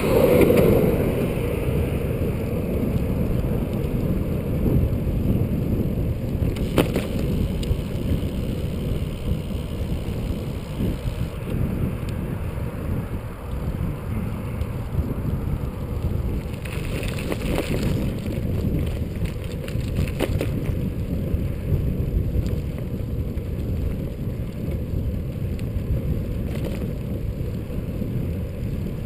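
Steady low rumble of wind on the camera microphone and bicycle tyres rolling on asphalt while riding, louder for the first second, with a few faint clicks.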